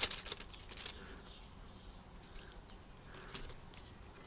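Faint handling noise from unpacking small accessories: a few soft clicks and rustles, several near the start, one about halfway through and another a second later.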